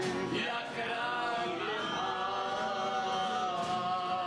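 A group singing a Czech song together in chorus, holding long notes, with a slide to a new note about half a second in, accompanied by acoustic guitars and a mandolin.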